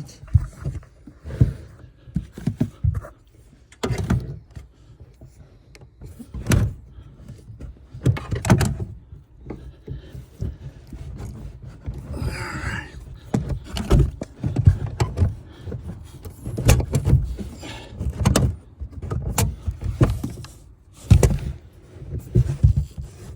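Irregular knocks, clicks and thunks of hands working at a BMW F30's tailgate, refitting its boot-lid gas strut after the strut's rattling end has been wrapped in tape.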